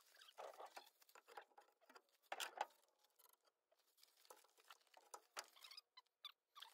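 Near silence with faint, scattered clicks and rustles, one slightly louder rustle about two and a half seconds in.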